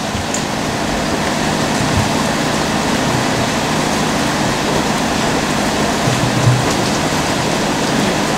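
Steady hiss of heavy rain, with a brief low thump about six and a half seconds in.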